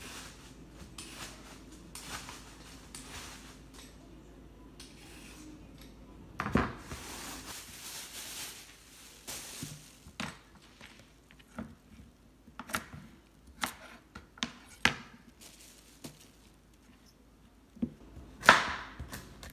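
Kitchen knife chopping carrots on a cutting board: separate sharp chops about a second apart, starting about halfway through. Before them there is a soft hiss of handling noise and a single knock.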